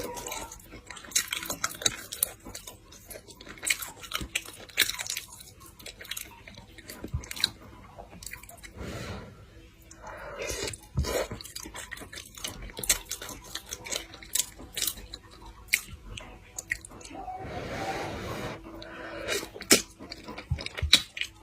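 A person chewing pork close to the microphone, with many irregular sharp mouth clicks and crunchy bites.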